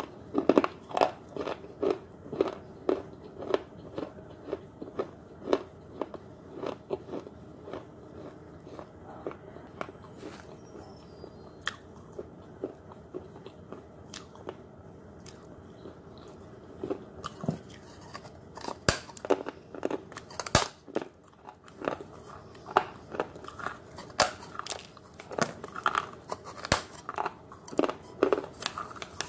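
A fired terracotta clay pot being bitten and chewed: sharp crunches and crackles of the brittle clay breaking between the teeth. They come quickly for the first several seconds, thin out in the middle, and come fast again for the last ten seconds.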